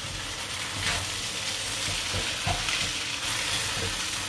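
Rice vermicelli sizzling in a hot steel wok while a wooden spatula stirs and tosses it, with light strokes of the spatula against the pan over a steady frying hiss.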